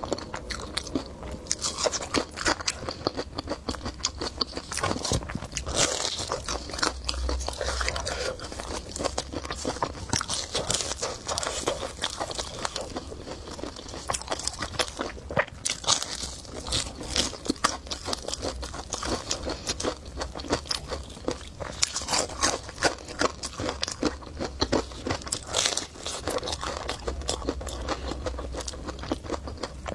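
A person biting and chewing food close to the microphone, with many quick, irregular crunchy clicks and wet mouth sounds throughout.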